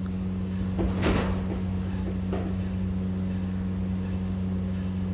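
A steady low machine hum, with a short metallic clatter about a second in and a fainter one a little over a second later, from small steel parts being handled and set in place at a truck gearbox housing.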